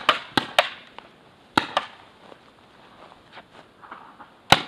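Paintball markers firing single sharp shots: a quick string of three at the start, two more about a second and a half in, and another near the end that begins a new fast string.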